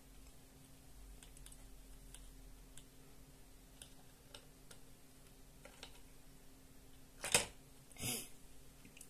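Faint clicks and scratches of thin wire being bent and worked against a cut plastic jar, with two louder scrapes close together near the end.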